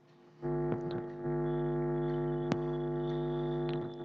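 A steady electronic buzzing drone, one unchanging pitch with many overtones, starting about half a second in and stopping just before the end, with a few faint clicks over it.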